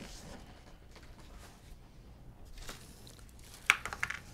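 Plastic air-pillow packing and cardboard being handled inside a shipping box: quiet rustling, with a few sharp crackles near the end.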